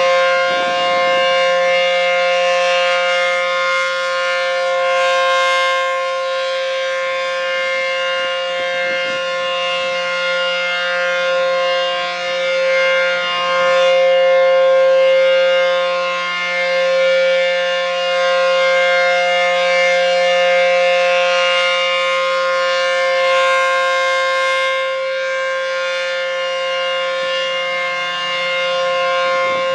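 ACA P-15 outdoor warning siren sounding a loud, steady-pitched alert tone during its scheduled monthly test. The pitch holds level while the loudness slowly swells and eases.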